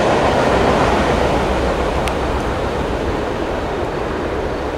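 Norfolk Southern freight train moving off into the distance, its steady running noise slowly fading. A faint click about two seconds in.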